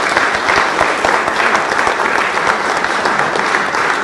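Applause from a roomful of guests, dense and steady.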